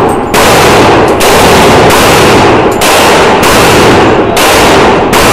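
AR-15 rifle fired semi-automatically, about six shots at roughly one a second. The shots are so loud that they overload the microphone, and each one rings on until the next. The string is emptying the magazine.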